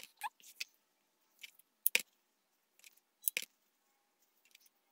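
A few short, sharp snips and rustles of cotton fabric being handled while the curved seam allowance of a fabric face mask is clipped, the loudest about two seconds in and another a little after three seconds.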